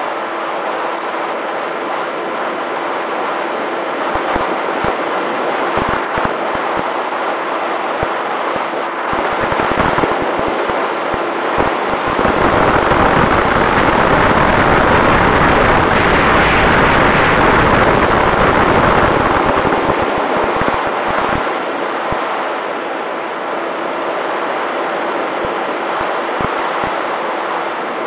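Wind rushing over the onboard camera's microphone on a Volantex Ranger 1600 RC plane in flight, with the steady hum of its electric motor and propeller underneath. The wind noise swells and buffets the microphone for several seconds midway, then settles back.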